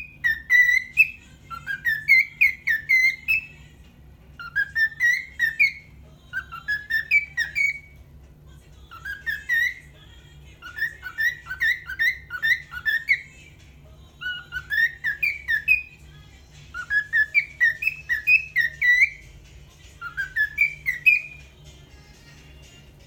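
Cockatiel whistling its song: repeated phrases of quick, upward-sliding whistled notes, each phrase one to two seconds long with short pauses between, stopping near the end. A steady low hum runs underneath.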